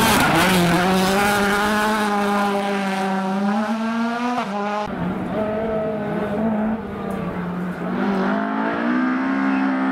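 Rally car engines at high revs. First a Ford Fiesta WRC's turbocharged 1.6-litre four-cylinder holds a high, steady note through a bend, with a quick dip and rise near the middle. About halfway through it gives way to another, older rally car's engine, which rises in pitch near the end as it accelerates.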